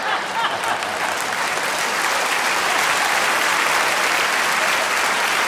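Concert audience applauding steadily in a hall.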